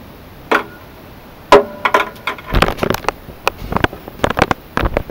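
Handling noise from an acoustic guitar being picked up and settled into position: a run of irregular knocks and clacks, two of the early ones ringing briefly, the loudest about a second and a half in.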